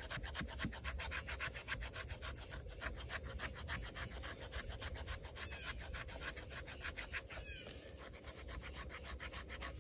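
Insects, crickets by the sound of it, chirping in a fast, even pulse, faintly, over a low steady rumble.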